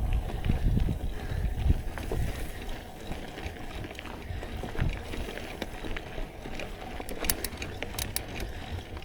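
Mountain bike being ridden on a dirt trail: low rumble on the microphone, strongest at first, with scattered clicks and rattles. A few sharp ticks come near the end.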